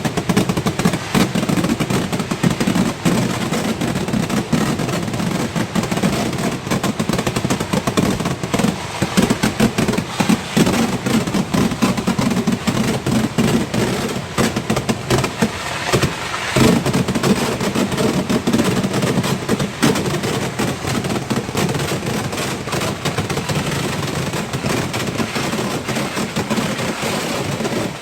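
Vedikettu firecrackers going off in a dense, rapid-fire chain of blasts, a near-continuous crackle that thins briefly about halfway through.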